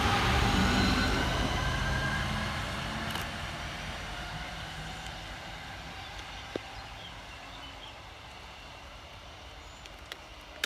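Class 323 electric multiple unit pulling away, its traction motors whining over the rumble of the wheels, fading steadily as the train moves off. A few faint sharp clicks near the end.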